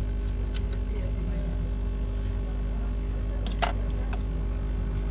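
Steady low hum in a repair workbench, with a few light clicks and one sharper click about three and a half seconds in.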